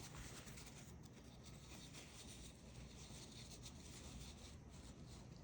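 Near silence: room tone with faint scratching.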